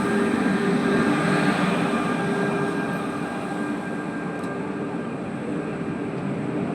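Passenger train rolling by as it comes in to stop, a steady rumble with a few faint steady whining tones, slowly getting quieter.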